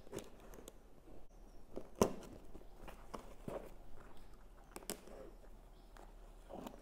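Utility knife blade slitting packing tape along a cardboard box: a run of small scratches, scrapes and clicks, with one sharper click about two seconds in.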